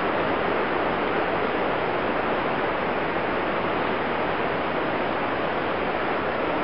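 Steady rushing hiss with no distinct events: the recording's constant background noise.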